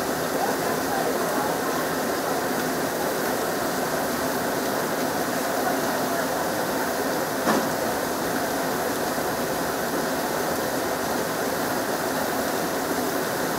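Steady rushing noise of a commercial gas range and the large stockpot of chicken drumsticks braising on it, with a single sharp click about seven and a half seconds in.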